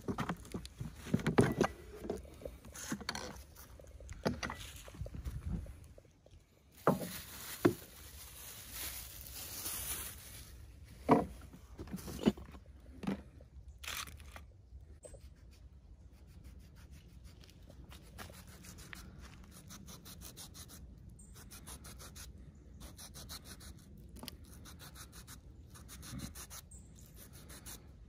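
Handling sounds at a wooden picnic table: a plastic cooler box and a thermos handled and set down with a string of sharp knocks and clacks. Then, from about halfway, quieter steady scraping as a small knife peels the skin off a tomato.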